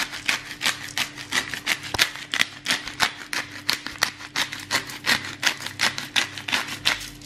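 Hand-held pepper mill grinding black peppercorns: a steady run of quick rasping clicks, about six a second, as the mill is twisted back and forth.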